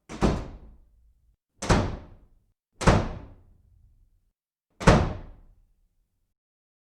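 Four heavy thuds at uneven intervals, each sharp at the start and dying away within about a second.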